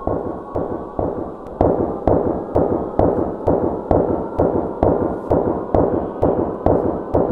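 Pulsing film-score sound design: sharp percussive hits about twice a second, each decaying quickly, over a steady high drone, with the hits growing louder about a second and a half in.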